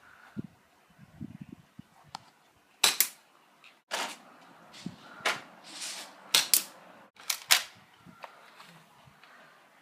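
BB gun firing: a series of sharp pops, several of them in quick pairs.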